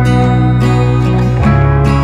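Background music led by plucked acoustic guitar over sustained low notes, the bass note changing about one and a half seconds in.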